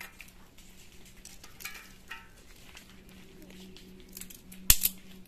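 Dry twigs rustling and knocking as they are pushed into a small wood fire under a cooking pot, with one sharp crack near the end.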